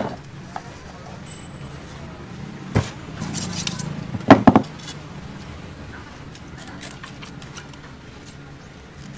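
Knife and metal tools at work on a giant ocean sunfish: a sharp knock at the start, another about three seconds in, a short clatter of metal clinks, then the loudest few knocks about a second later, over a low steady hum.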